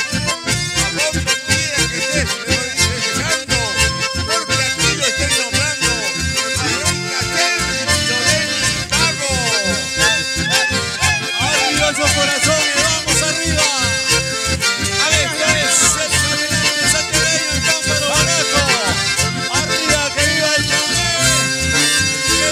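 Live band music led by an accordion, with acoustic guitar and bass guitar over a steady beat.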